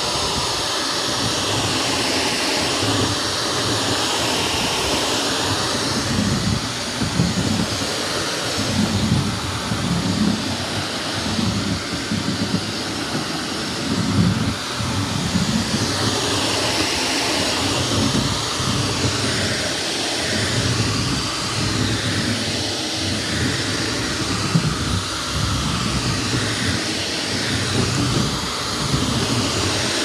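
Shark Navigator Lift-Away Professional upright vacuum cleaner running steadily while it is pushed back and forth across a hardwood floor. The sound swells and eases with each stroke, about once every second or so.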